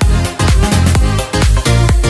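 Electronic dance music with a heavy kick drum, about two beats a second, under layered synthesizer parts.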